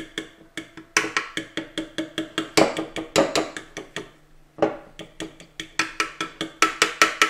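A metal fork beating an oil-and-vinegar dressing with crumbled hard-boiled egg in a glass bowl, clinking against the glass in fast strokes, about five a second, with a short break about four seconds in.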